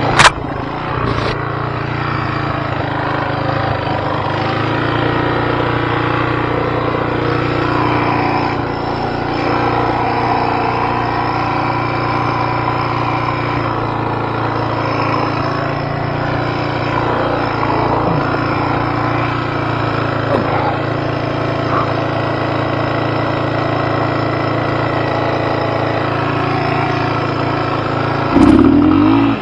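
Off-road vehicle engine running steadily at low revs as it crawls over rock, with a sharp knock right at the start. Near the end it revs up briefly and louder.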